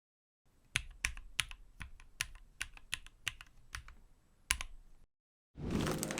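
Keystrokes on a mechanical keyboard: about a dozen separate key presses typed at an unhurried pace, each a sharp clack. Music starts near the end.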